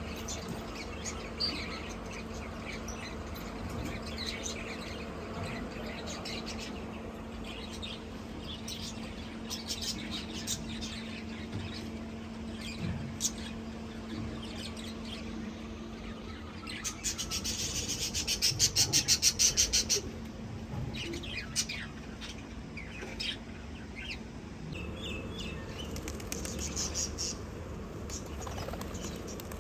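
Birds chirping with scattered short high calls, and a loud, fast run of chirps about two-thirds of the way through. A steady low hum runs underneath.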